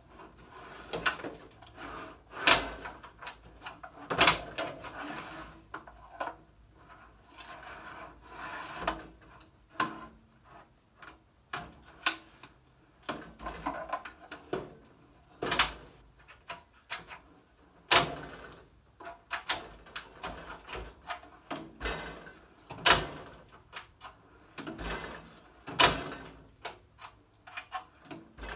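Steel drawer of a US General rolling tool cart being slid out and pushed back in repeatedly on its metal slides, with rattling and scraping between sharp metal clacks.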